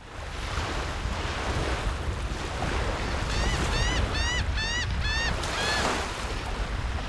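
Steady rush of surf and wind with a low rumble, and a gull calling about six times in quick succession around the middle, each call rising and then falling in pitch.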